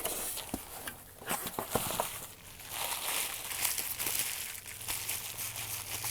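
Packaging rustling and crinkling as a small box is opened and its contents pulled out, with scattered light clicks and knocks.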